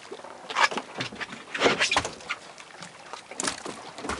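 Irregular patter of small water splashes, with a few louder splashes near the middle.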